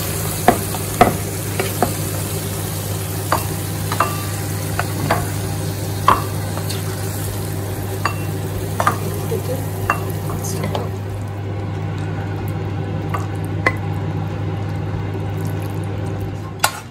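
Wooden spoon scraping and tapping against a nonstick pan as a thick chicken curry is spooned out into a serving bowl, in scattered clicks and scrapes. A soft sizzle runs underneath and fades about ten seconds in, over a steady low hum.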